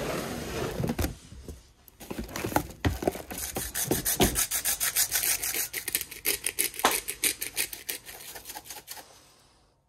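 Kitchen gear clicking and clattering as someone rummages through it, a dense run of quick clicks and rattles that thins out and stops near the end.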